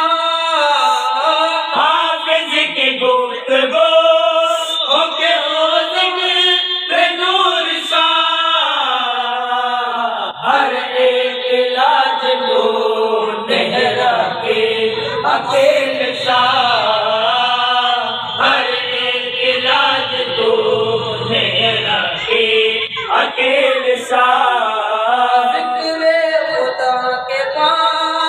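A group of men chanting devotional verses together in a continuous melodic recitation, as in a milad recitation.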